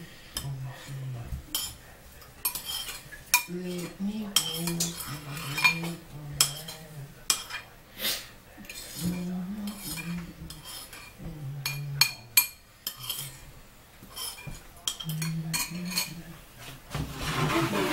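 Kitchen utensils and dishes clinking and knocking in scattered sharp clicks during food preparation, with a low voice humming a tune in short phrases between them.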